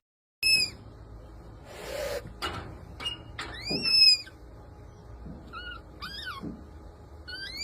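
Red panda giving a series of short, high-pitched calls after half a second of silence, with the loudest, arching call about four seconds in. A few short noisy rustling sounds come about two seconds in.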